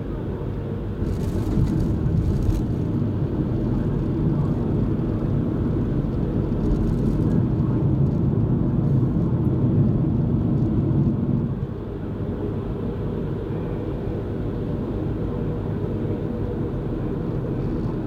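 Car road and engine noise heard from inside the cabin while driving: a steady low rumble that grows a little louder early on and drops off suddenly about eleven and a half seconds in.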